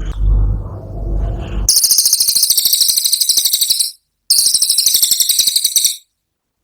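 Cililin songbird giving its 'tembakan' song: two loud, very fast, high-pitched buzzing trills of about two seconds each with a brief break between. A low rumble comes before the first trill.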